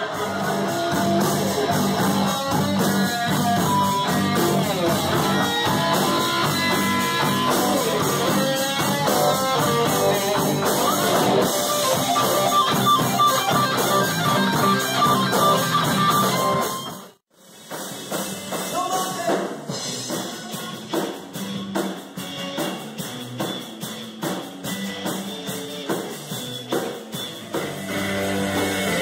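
Live rock band playing, heard from the audience: electric guitars and a drum kit. The music breaks off for a moment about two-thirds of the way through and another song picks up.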